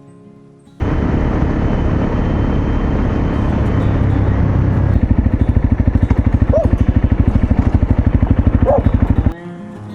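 Honda CRF250L single-cylinder motorcycle engine running loud, starting abruptly about a second in with a heavy wash of noise. From about halfway it settles into an even, rapid beat of about a dozen pulses a second, typical of the single at idle, and it cuts off suddenly near the end.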